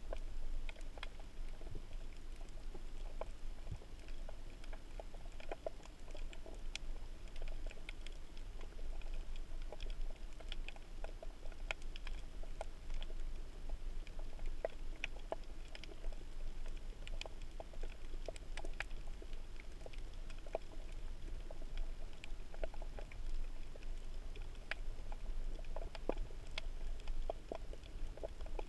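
Underwater ambience over a shallow reef: many irregular sharp crackling clicks over a steady low rumble.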